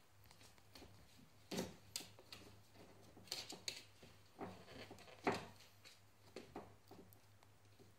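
Scattered soft knocks and clicks as a West Highland white terrier puppy tugs and chews a nylon harness strap on a wooden floor.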